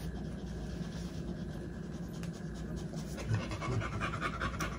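American bully dam panting as she lies nursing her newborn litter during whelping, with a quick run of short rapid sounds over the last second or two and bedding rustling under the handled puppies.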